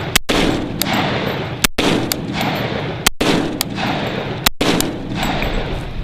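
Wilson Combat 300 HAM'R AR-pattern rifle firing a steady string of shots in .300 HAM'R, about a second and a half apart. Each report trails off in an echo.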